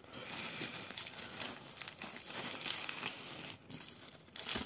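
Clear plastic wrapping crinkling and rustling as a folding knife in its wrapper is pulled out of a nylon sheath and handled, with a couple of sharper rustles near the end.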